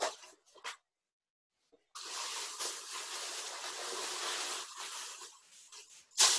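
A few brief scratchy sounds, then a steady hiss lasting about three seconds that fades out.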